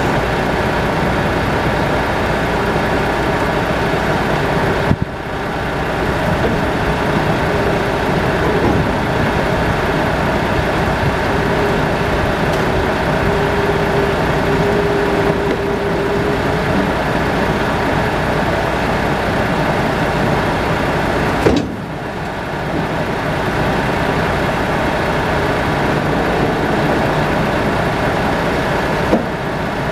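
Forklift engine running steadily at close range while it works a lumber bundle off a flatbed trailer, with a faint whine for a few seconds around the middle. Three short knocks, each followed by a brief dip in the noise, come about five seconds in, past the twenty-second mark, and near the end.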